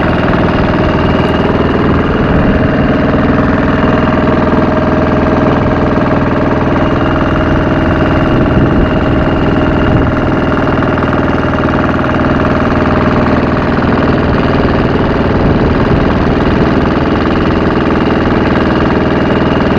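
Wooden fishing boat's engine running steadily at cruising speed, a loud, even drone with no change in pace.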